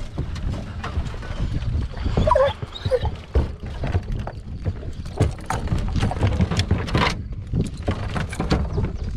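Pickup truck rolling slowly over a rocky gravel track: a low rumble with many scattered knocks from stones and the rattling dog box in the bed. A hound in the box gives a brief cry a little over two seconds in.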